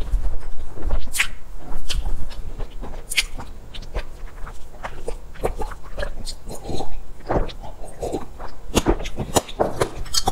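Close-miked mouth sounds of eating soft crepe cake: wet chewing with lip smacks and clicks, then sips and swallows of a drink from about six seconds in.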